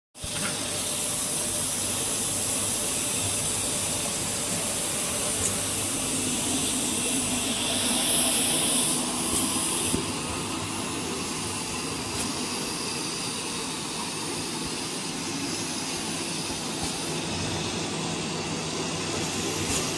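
Rawhide stick forming machine running, a steady mechanical rushing noise with no distinct rhythm, extruding strands of rawhide through its die. The noise drops a little in level about halfway through.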